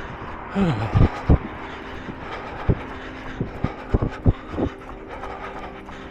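Running footfalls jolting a body-worn recording device, heard as short low thuds, some in a quick series about three a second, over a steady hum of road traffic.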